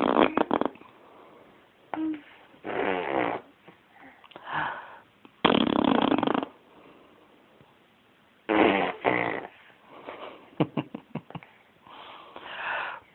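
Funny noises made with the mouth and throat, a rasping, snore-like sound repeated in about eight short bursts with pauses between.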